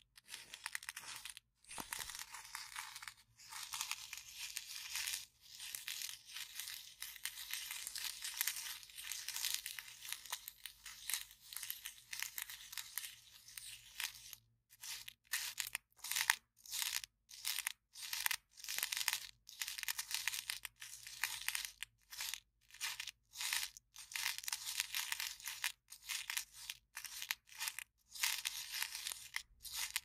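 Paper cup rubbed and scratched against the microphone, giving a crinkly, papery scratching. It runs almost without a break at first, then from about halfway comes in short separate strokes, roughly one or two a second.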